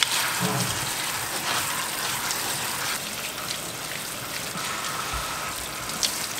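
Kitchen faucet's spray head running steadily, the water splattering over fruit being rinsed in a colander and in the hands.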